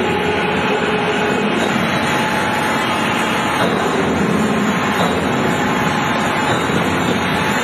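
Heavy portable electric drill running steadily: a dense mechanical running noise with a faint steady whine.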